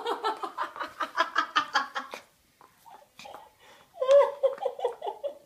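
Laughter: rapid, repeated bursts of laughing for about two seconds, a short pause, then more laughing near the end.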